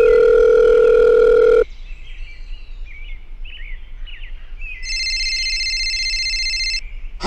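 A loud, steady, horn-like tone held for about a second and a half, then faint bird chirping, then a higher steady tone for about two seconds.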